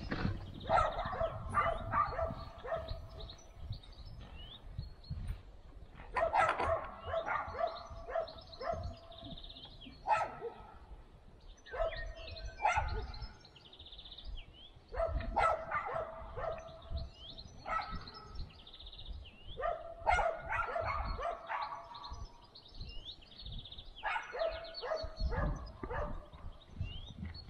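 A dog barking in repeated bouts of quick, sharp barks, each bout lasting a second or two with short pauses between.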